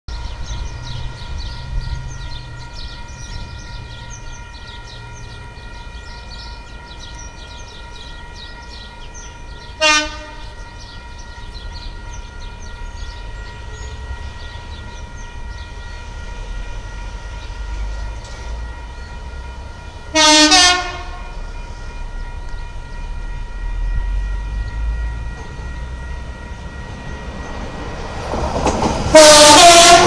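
Electric commuter train's dual-tone horn sounding three times: a short toot about ten seconds in, a longer toot around twenty seconds, and a loud blast near the end as the train passes close. The dual tone is extremely irritating and much louder than the old diesel horns.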